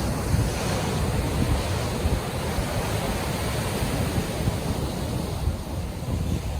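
Sea surf: waves washing in, a steady rushing noise with a heavy low rumble underneath, easing slightly a little before the end.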